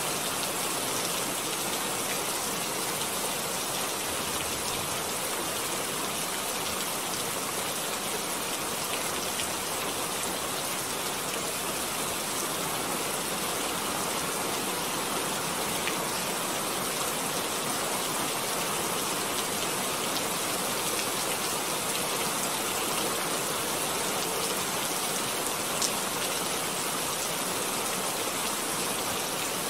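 A steady, even hiss with a few faint ticks in it.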